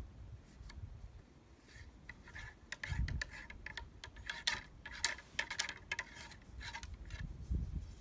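A black-powder shotgun is being loaded: a run of small clicks, taps and scraping rubs as a sheep's-wool wad is pushed down the barrel onto the powder. The loudest moments are a couple of dull thumps.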